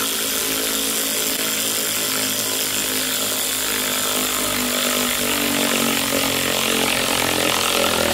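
Power drill running steadily at full speed, boring into a wooden 2x4; it stops abruptly at the end.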